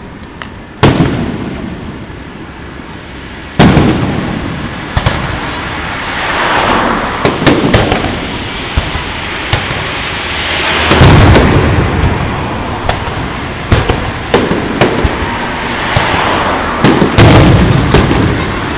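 Aerial firework shells bursting. Two big booms come about one second and three and a half seconds in, each trailing off in a long rolling rumble, then a steady run of overlapping bangs and sharp crackles.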